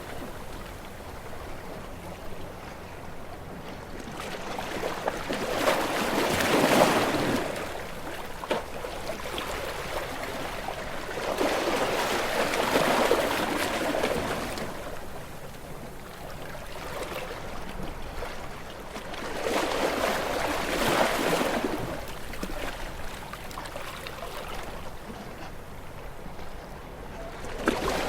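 Ocean waves breaking against rocks and washing back, each surge swelling and fading, about one every six to eight seconds.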